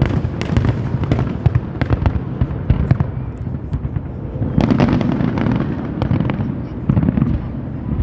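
Fireworks display: a rapid stream of crackling pops over a constant low rumble of booms, with a heavier burst of booms about halfway through and another near the end.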